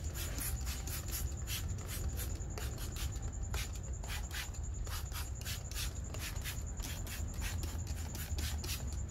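Hand trigger spray bottle spraying acid wheel cleaner onto an alloy rim: a steady run of quick hissing spritzes, a couple to a few a second, as the trigger is pulled over and over.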